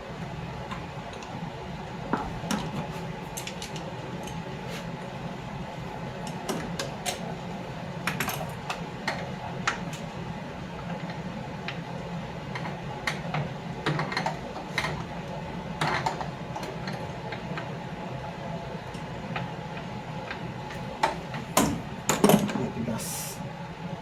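Scattered metallic clicks and clinks of hand tools and engine parts being handled while hoses and wiring are disconnected from a throttle body, over a steady low background hum. A few louder knocks come near the end.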